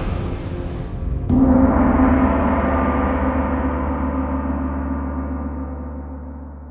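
The last of a sung theme song dies away, then a single deep gong stroke about a second in rings on and slowly fades out.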